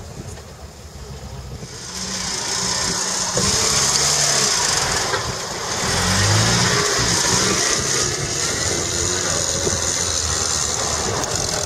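Land Rover Series III engine revving under load as it crawls up a steep muddy bank. It grows louder about two seconds in as the vehicle draws close, and the pitch rises and falls with the throttle.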